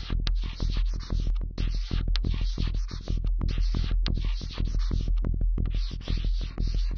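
Electronic music track of dense noisy crackle and rapid irregular clicks over a steady low drone.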